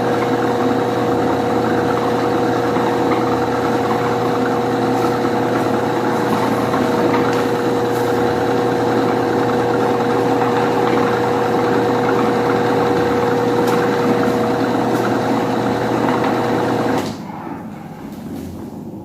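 Britânia/Philco 155 W electric fan running steadily, its motor humming with a steady whir from the blades. Near the end the sound drops off sharply, leaving a much fainter whir.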